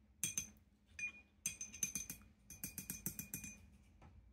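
Jingling, clinking rattle of small hard objects shaken together, each stroke with a bright ring. A short jingle comes about a quarter second in and another near one second, then a longer run of rattling lasts about two seconds.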